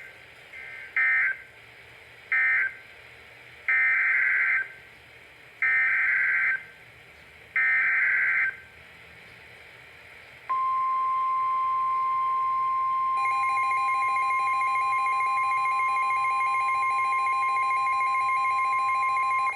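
NOAA Weather Radio EAS/SAME data bursts. Three short chirping bursts end the previous message, and three longer ones about two seconds apart carry the header of the next alert. They are followed by the steady 1050 Hz NWR warning alarm tone, which marks a warning. A few seconds into the tone, a second, rapidly pulsing electronic alarm joins in.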